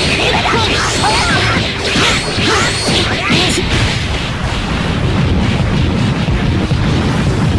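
Anime fight sound effects: a fast, dense run of whooshes and punch-like hits, with many short swishing sweeps in the first few seconds, giving way to a steady low rumble from about halfway.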